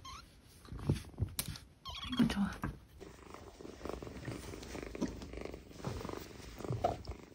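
Kitten purring steadily while being stroked, after a few clicks and knocks in the first seconds.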